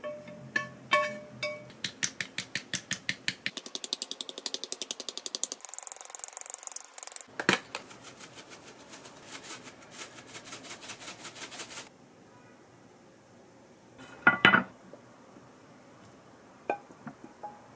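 Chopsticks clinking on a ceramic plate with a short ringing tone, then a hand grinder twisted over the pasta in long runs of fast, even clicking. A frying pan knocks twice against the plate as food is tipped out, followed by a few light clinks.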